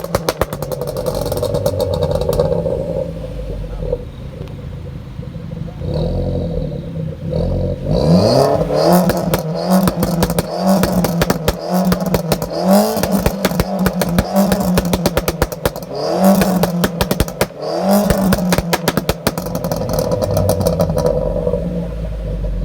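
Straight-piped Volkswagen Scirocco revved hard about five times, each rev rising quickly in pitch. Every rev is followed by a burst of rapid exhaust pops, bangs and crackles on the overrun. The car runs more steadily for a few seconds before the revving starts, about a third of the way in.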